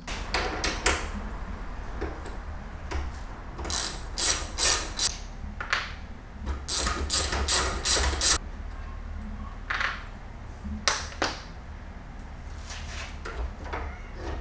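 Ratchet wrench clicking in short runs with pauses between, as the bolts holding the servo cover bracket under a motorcycle seat are backed out, over a steady low hum.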